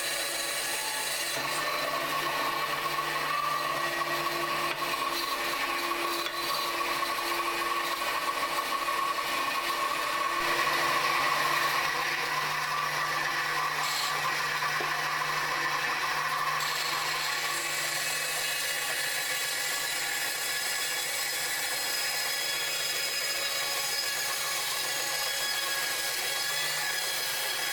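Power saw running steadily while cutting Osage orange scale wood for knife handles. A constant motor hum sits under the cutting noise, which grows louder about ten seconds in and eases after.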